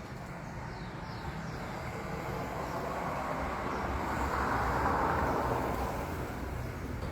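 A vehicle passing by: a broad rushing noise that swells to a peak about five seconds in and then fades away.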